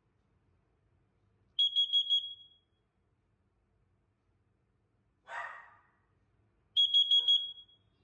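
System Sensor CO1224A carbon monoxide alarm sounding under its test button: a group of four short, high-pitched beeps, a pause of about five seconds, then four more. This is the four-beep pattern that signals carbon monoxide. A short, duller noise falls in the pause.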